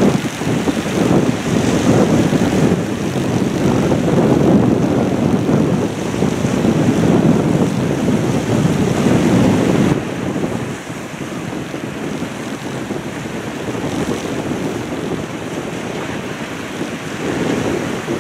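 Strong wind buffeting the microphone in gusts, a low rumbling noise, with the wash of a choppy sea beneath it. The gusts ease somewhat about ten seconds in.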